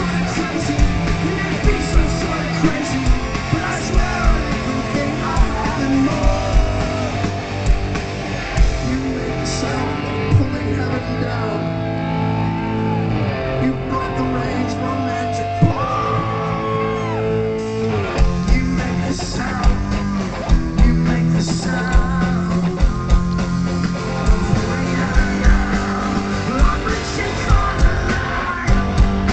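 Rock music with singing, guitar and drums; the drums drop back for several seconds in the middle, leaving held notes, then come back in.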